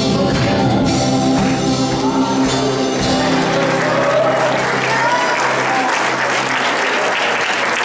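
Worship band music with sustained chords that die away about halfway through, giving way to a congregation applauding with a voice over the clapping.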